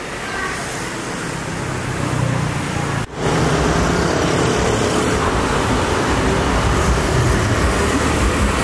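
Steady road traffic noise, a low rumble of passing vehicles. It drops out briefly about three seconds in, then comes back slightly louder.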